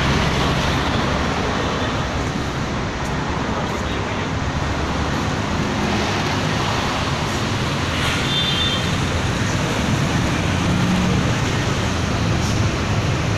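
Steady road-traffic noise with a low engine hum underneath, and a brief high tone about eight seconds in.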